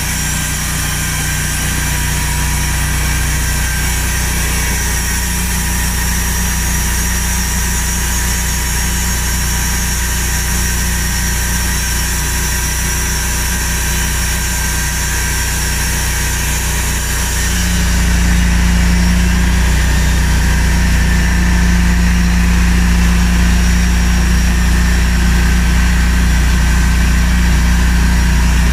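Large log band sawmill running with a loud, steady machine drone. About 18 seconds in, the sound shifts, becoming louder and deeper.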